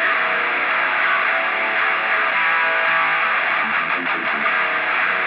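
Background rock music with electric guitar, playing steadily under the title card.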